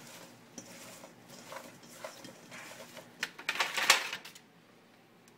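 Seasoned, oiled sweet potato fries being tossed and stirred in a bowl: irregular scraping and rustling, with a louder flurry about three and a half seconds in, then stopping.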